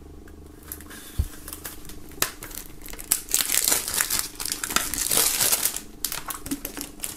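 Plastic shrink-wrap being cut open and peeled off a CD jewel case: a couple of sharp clicks, then dense crinkling from about three seconds in.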